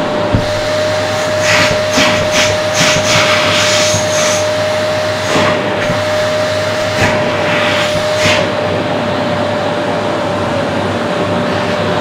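Vacuum cleaner running through its bare hose: a steady motor whine over rushing air. In the first half there is a run of short hissing surges in the airflow, with a few more near the middle.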